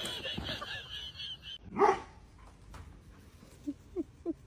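A dog barks once about two seconds in, then gives three short, quick yips near the end.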